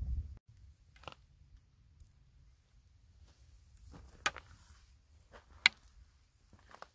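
Footsteps on loose rocky scree: a few sharp clicks and crunches of stones shifting and knocking together underfoot, the loudest a little over four and five and a half seconds in, over a faint low rumble.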